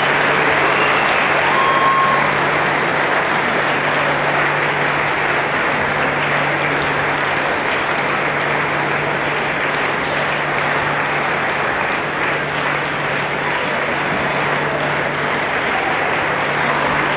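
A large crowd applauding, with dense clapping that holds steady throughout.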